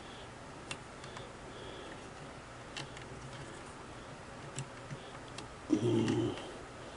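Sparse faint clicks and light metal taps of a small screwdriver and screw being worked into the presser bar bracket of a Singer 353 sewing machine, the screw not yet catching. A short louder low hum comes about six seconds in.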